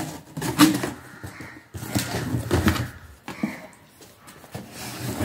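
Cardboard boxes being handled: an inner box scraping and bumping against its outer shipping carton as it is pulled out and set down, a run of irregular rustles and knocks.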